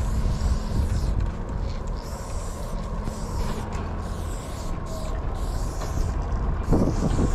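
Aerosol spray paint can hissing in short, repeated bursts as the nozzle is pressed and released, over a low rumble of wind on the microphone.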